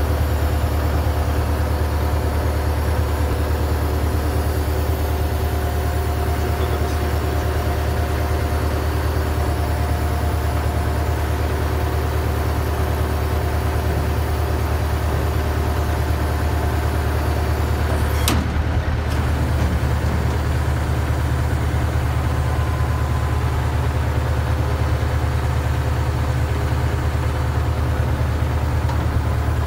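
Container truck's diesel engine idling steadily, a constant low rumble with a faint steady hum above it. One short click about two-thirds of the way through.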